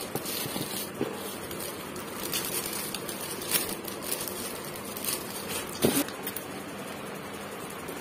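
Shiny metallic gift wrap crinkling and rustling as it is handled and pulled open by hand, in irregular crackles, with a louder crinkle about six seconds in.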